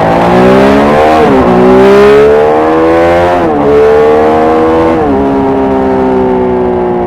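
Motorcycle engine accelerating hard through the gears: the pitch climbs and drops sharply at each of three upshifts, about a second and a half to two seconds apart, then slowly falls as the throttle eases.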